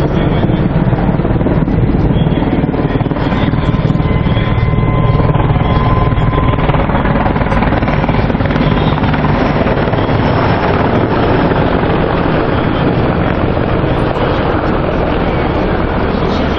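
Mil Mi-26 heavy-lift helicopter flying low overhead: a loud, steady rapid thump from its eight-blade main rotor over the rush of its twin turboshaft engines.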